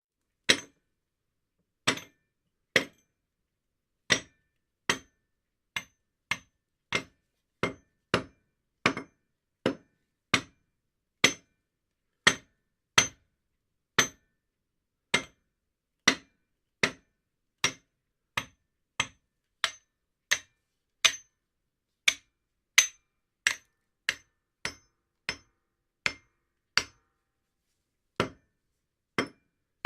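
Hammer striking cement: a long series of single sharp clacking hits at irregular intervals, from a fraction of a second to about two seconds apart, with a short ring after each.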